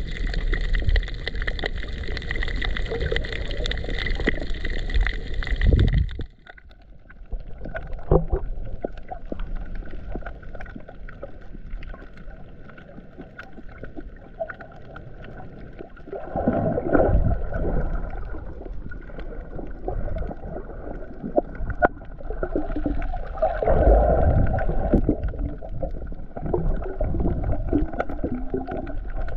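Muffled water noise picked up by a camera held underwater while snorkeling: water swirling and gurgling against the housing. A steady hum in the first few seconds cuts off suddenly, and the water noise swells louder twice in the second half.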